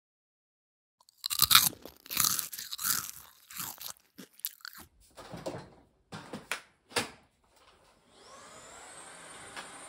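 A run of crisp crunching and chewing bursts, like popcorn being munched, for about six seconds. About eight seconds in, a cordless stick vacuum starts with a rising whine and settles into a steady high-pitched run.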